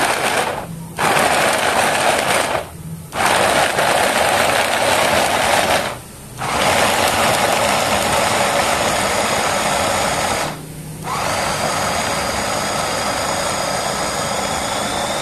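Electric mini food chopper mincing garlic cloves, its motor and spinning blades whirring loudly in pulses. It stops briefly about four times, and the last run, near the end, carries a steadier motor whine.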